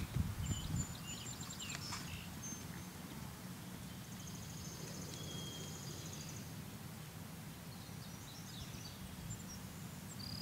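Outdoor ambience: small birds chirping and trilling now and then, over a low steady rumble.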